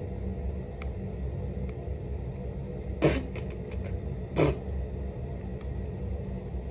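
Handling of an eyeshadow palette's packaging: two short, sharp crackling noises about a second and a half apart, a few faint clicks, over a steady low room hum.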